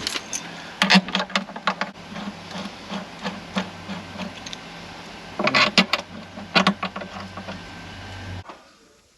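A small electric tool motor running while intake manifold bolts are cleaned, with bursts of metal scraping as the bolts are worked against it. The motor cuts off sharply near the end.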